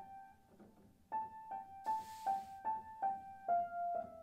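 Background piano music: single notes alternating between two pitches at about three a second, pausing briefly near the start, with the last note held near the end. A brief hiss sounds about two seconds in.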